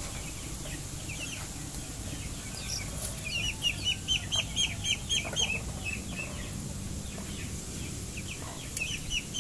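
Chickens calling: a run of quick, high-pitched clucks, about five a second, for a couple of seconds from about three seconds in, then another run near the end.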